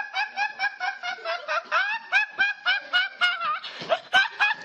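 A young man laughing uncontrollably: high-pitched, squealing laughter in quick, even pulses about five a second, with a rough, breathy gasp about four seconds in.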